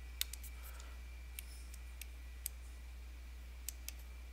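Sharp, scattered clicks and taps of a pen stylus on the screen while handwritten notes are erased and rewritten, a few close together near the start, then spread out. A steady low electrical hum runs underneath.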